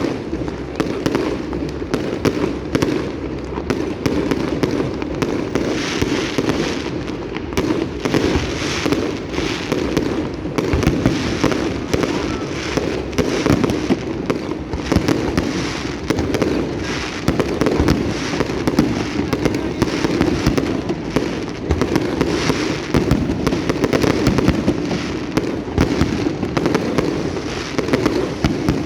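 Fireworks display: a dense, continuous barrage of shells bursting and crackling, many bangs a second without a break.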